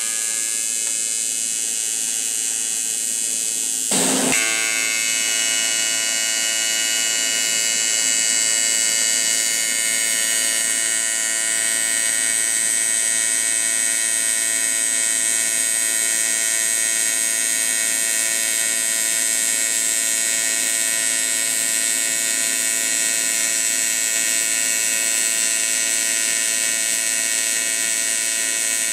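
AC TIG welding arc on aluminum, a steady high-pitched electric buzz as a bead is laid along a lap joint, with a short crackle about four seconds in.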